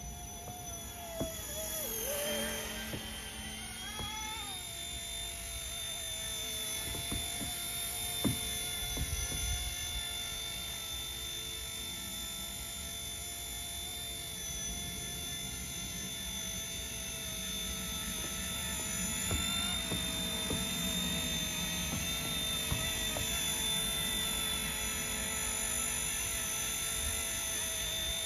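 RC ERA C189 MD500 model RC helicopter in flight: a steady high-pitched whine of its electric motor and rotors. The pitch dips and climbs back about two to four seconds in, as the throttle changes, and a few faint sharp ticks come through.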